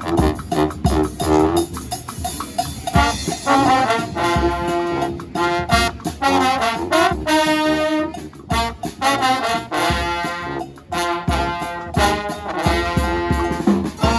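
Live street band playing: horns carry a melody in held and short notes over a steady drum beat.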